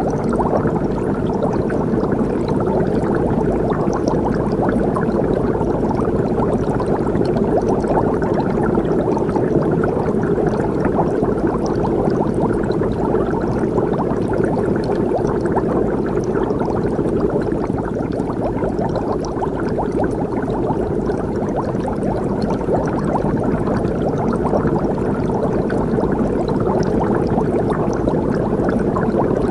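A steady, dense bubbling sound effect, like liquid boiling hard, with fine crackles throughout.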